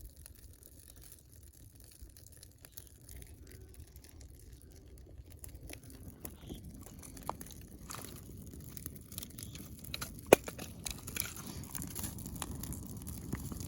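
Campfire kindling crackling and snapping: scattered small pops with one sharp snap about ten seconds in, over a low rushing noise that builds from about halfway.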